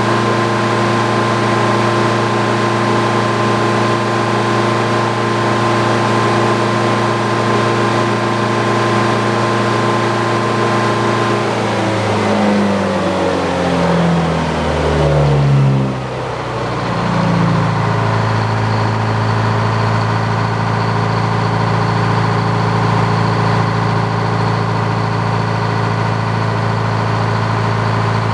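Detroit diesel engine powering a Frick sawmill, running steadily. About twelve seconds in its pitch shifts in steps and sags for a few seconds, then it settles back to steady running.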